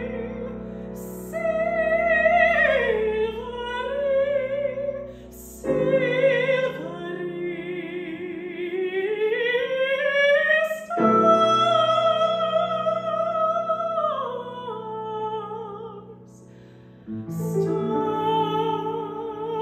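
A woman singing classical art song in operatic style with a clear vibrato, to piano accompaniment. Her long held phrases glide down in pitch, with quick breaths between them, over sustained piano chords that change with each phrase.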